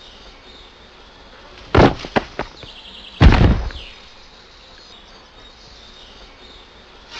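Impact sound effect of a figure crashing into the ground: a few short sharp knocks, then a heavy crash with a deep thud about three seconds in, over a low steady hiss.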